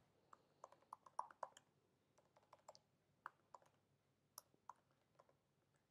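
Faint computer keyboard typing: irregular keystroke clicks in short runs, with brief pauses between them, as a username is entered into a login field.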